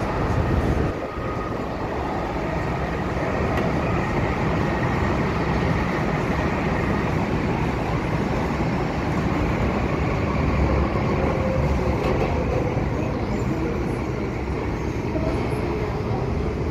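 Inside an MTR M-Train electric multiple unit running through a tunnel: a steady rumble of wheels on rail and a rattling car body. Faint electric traction whine comes through it, lower in pitch toward the end as the train nears the station.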